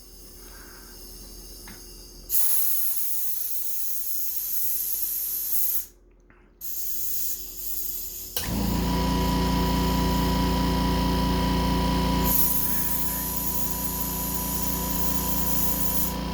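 Compressed-air equipment hissing, with a brief gap near the middle, then from about eight and a half seconds in a steady motor hum joins the hiss and runs on.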